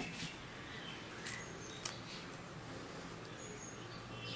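A few light clicks and taps of rubber foam feet being handled and pressed onto the bottom of an MDF speaker enclosure, over a steady low hum.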